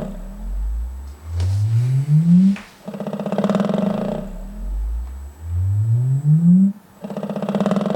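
Velodyne DD-15 subwoofer playing a low tone that sweeps upward in pitch, then a loud buzzing rattle held at one pitch for about a second and a half, the cycle repeating twice. The rattle is the fault being shown.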